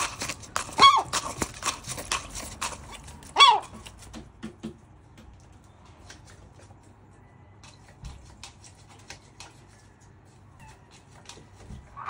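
Herring gull giving two short calls that slide down in pitch, about a second in and again about three and a half seconds in, over quick clicks and taps of its bill against a cup of mealworms as it feeds. The tapping thins out and grows fainter after the first few seconds.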